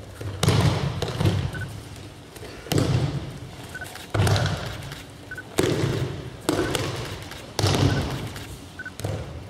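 Aikido attackers being thrown and slapping down onto the mats in breakfalls, about seven hard thuds one to two seconds apart, each dying away in the echo of a large hall.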